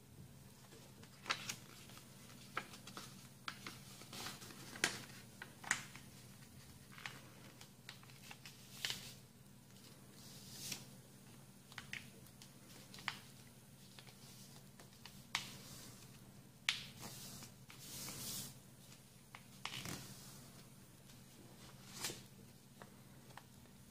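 A sheet of paper being folded and creased by hand into a paper airplane: irregular crisp crackles and short rustles, about one a second, with one longer rustle near the end.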